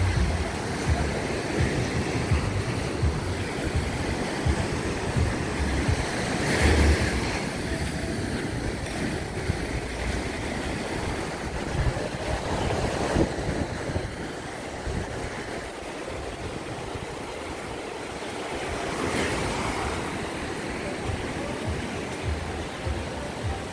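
Small waves breaking and washing up a sandy beach, with surges about a quarter of the way in and again near the end. Wind buffets the microphone throughout.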